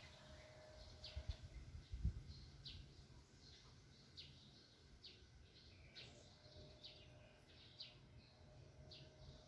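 Faint small-bird chirps: short, high, falling notes repeated about once or twice a second. A few low thumps sound between one and two seconds in.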